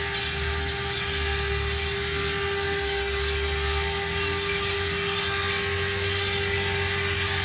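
CNC stone-engraving machine running: a steady high spindle whine over a hiss, with a low rumble that swells and fades in stretches of a second or two.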